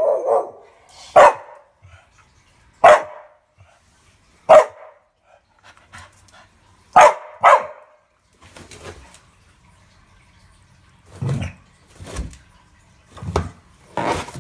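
Staffy-type dog barking in play at a balloon: single sharp barks a second or two apart, a quick pair about seven seconds in, then duller, lower sounds near the end as it noses into the balloon.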